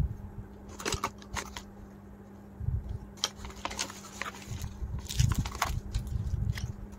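Handling noise from bamboo toothbrushes and paper packing: scattered light clicks and crackles as the wooden handles knock together and the paper and cardboard rustle, a handful of them clustered about halfway through.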